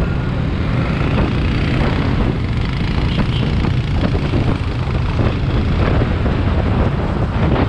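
Wind buffeting a handlebar-mounted action camera's microphone, a steady low rumble over the scooter's engine and road noise as it picks up speed.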